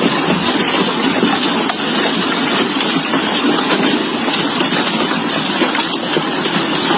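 Heavy hailstorm with rain: a loud, steady, dense roar of falling hail and water, peppered with many fine ticks.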